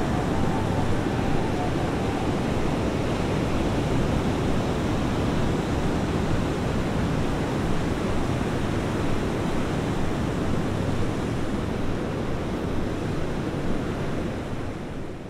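Ocean surf washing onto a beach: a steady rushing wash of waves that fades out near the end.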